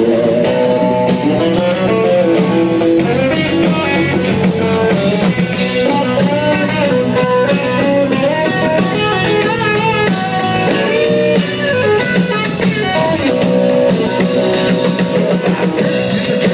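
Live country-rock band playing an instrumental passage: electric guitar leading over strummed guitar, bass and drum kit.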